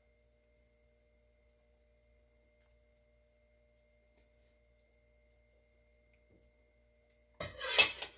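Very quiet room with a faint steady electrical hum; about seven seconds in, one brief loud noise lasting under a second.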